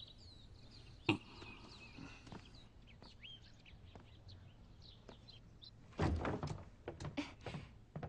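Small birds chirping, with a single sharp thump about a second in. About six seconds in a door opens, followed by a few footsteps.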